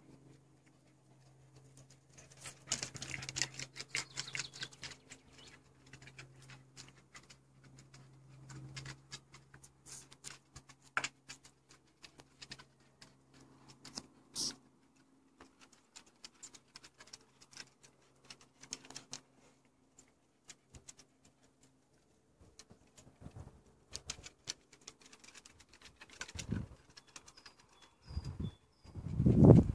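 Dogs' claws clicking and pattering irregularly on wooden deck boards as a Basenji puppy and another small dog walk about. A loud low thump comes near the end.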